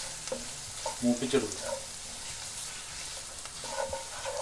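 Chilli powder and turmeric sizzling in hot coconut oil in a clay pot while a wooden spoon stirs and scrapes them round: the spice masala being roasted for a fish curry.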